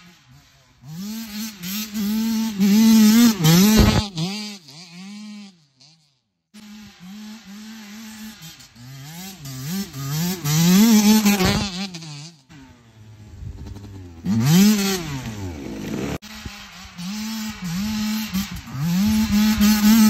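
Suzuki RM85 85cc two-stroke dirt bike engine run hard, its pitch climbing and dropping again and again as it accelerates. It swells loud as the bike comes close several times, with a short break about six seconds in.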